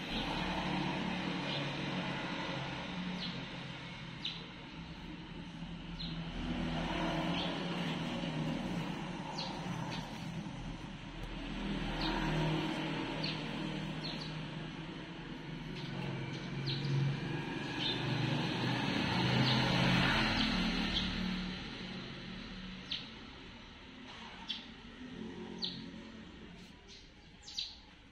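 Steady background noise that swells and fades in long waves of several seconds, with faint short high chirps scattered through it, more of them near the end.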